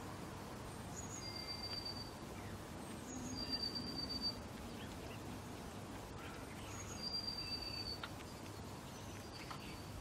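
A bird giving a thin, high, level whistled note three times, each about a second long and each led by a brief higher note, over faint steady background noise.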